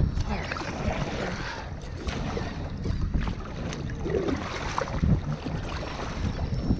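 Wind buffeting the microphone of a kayak camera on open water: a low, uneven rumble that comes and goes, with faint scattered noises over it.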